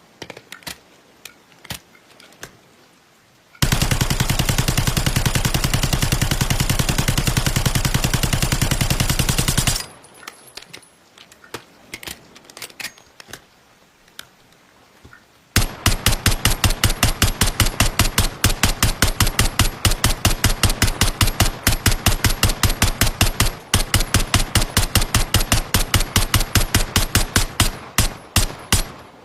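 PP-90M1 9mm submachine gun firing on full auto: a dense burst of about six seconds, then a long string of rapid shots with one brief break. Light clicks and rattles come before and between the bursts.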